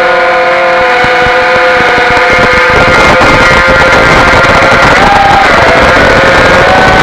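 Brushless motors and propellers of a QwinOut F4-X1 FPV racing quadcopter whining in flight, the pitch shifting with the throttle, rising briefly about five seconds in.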